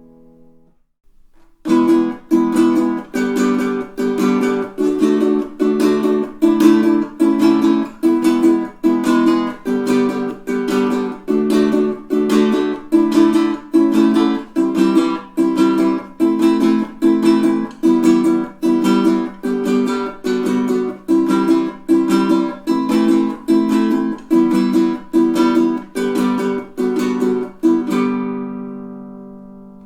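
Nylon-strung Pono solid acacia baritone ukulele in DGBE tuning, strummed in a steady, even rhythm of chords. A final chord rings out and fades near the end.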